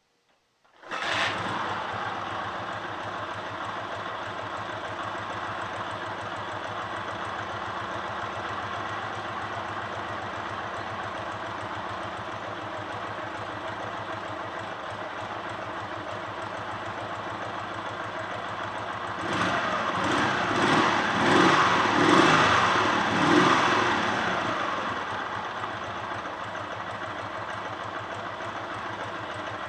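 A Dnepr MT-10-36 motorcycle's flat-twin engine comes in abruptly about a second in and runs at a steady idle. It is revved up and down several times from about two-thirds of the way through, then drops back to idle. The owner is trying to trace a knock in this engine and says it runs unevenly.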